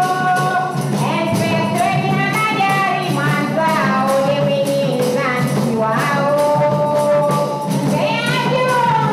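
Live singing over two large barrel drums played by hand, with jingling percussion keeping a steady beat.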